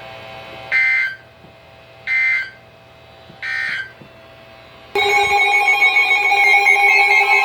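Emergency Alert System broadcast: three short two-tone data bursts of the SAME header, about 1.3 s apart. About five seconds in, the loud, steady attention tone starts, signalling that a warning message follows.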